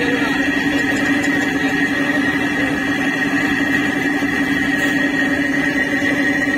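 Engine of a river boat running steadily under way: a constant drone with a steady high whine above it.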